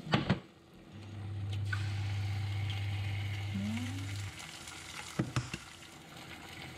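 An egg cracked sharply against the frying pan, then sizzling as it fries in hot oil. A low steady hum from the induction hob runs under the sizzle and cuts out about four seconds in, and there are a couple of light knocks a little after five seconds.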